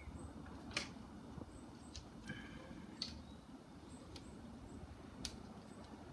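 Quiet background with a handful of sharp clicks or taps, irregularly about a second apart, and a few faint high chirps.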